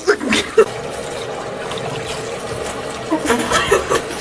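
Tap water running in a steady stream, with short bursts of voice over it at the start and again near the end.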